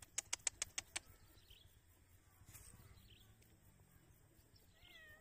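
A bird's rapid call of about seven sharp, high chips in under a second, then faint chirps; near the end a cat meows briefly.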